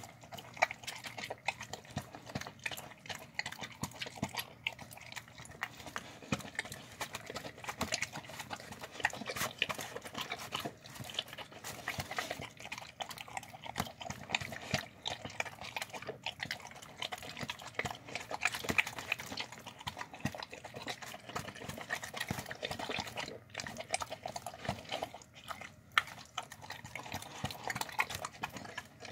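A dog eating pasta out of a clear plastic tub: steady wet chewing and licking, full of quick clicks.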